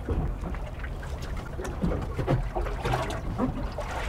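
Water lapping and trickling against the hull of a small fishing boat at rest, over a low rumble of wind.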